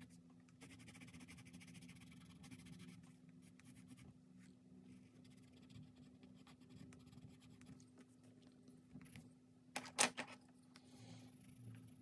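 Caran d'Ache coloured pencil scratching across sketchbook paper in quick, faint strokes as colour is laid in and layered. About ten seconds in comes one brief sharp knock, the loudest sound.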